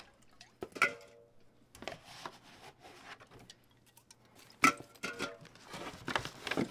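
Aluminium drink cans being pulled out of a cardboard 12-pack and packed into a cooler bag: scattered knocks and light metallic clinks as the cans touch, with cardboard rustling.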